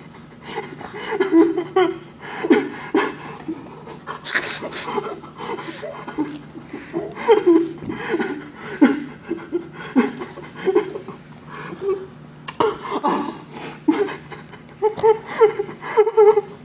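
A person's voice in many short, breathy bursts, like laughing or panting, with no words.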